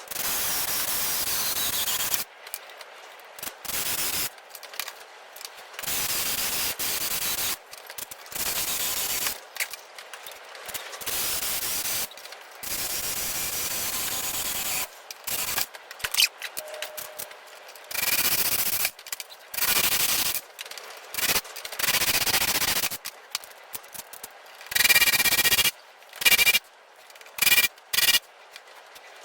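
Drill boring holes through steel clamps, heard in abrupt chopped bursts of one to two seconds each. A few bursts near the end carry a high squeal from the bit cutting the metal.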